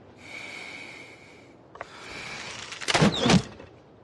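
Arrows whooshing through the air, two flights one after the other, then two loud sharp thuds a moment apart as arrows strike a coiled straw archery target.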